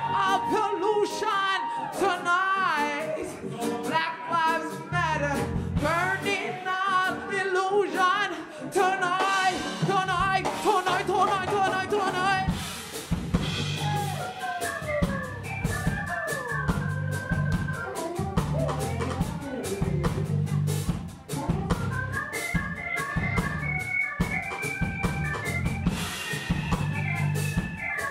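Live band music: drum kit, electric bass and Roland electric keyboard, with a singer's wavering, wordless vocal line over them for the first dozen seconds. After that the keyboard carries the lead with held organ-like chords that step in pitch over the steady drum and bass groove.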